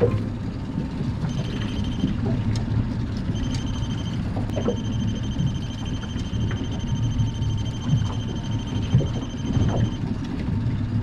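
Steady low rumble of wind and water around a small open fishing boat at sea, with a few faint knocks. A thin high electronic tone beeps on and off briefly a few times, then holds for several seconds in the middle.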